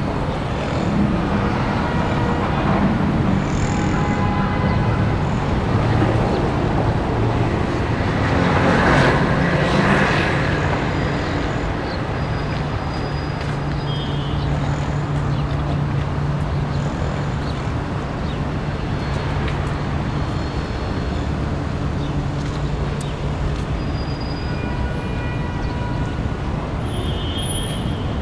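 City street traffic: a steady hum of passing vehicles, with one vehicle passing louder about nine to ten seconds in and a low engine drone through the second half.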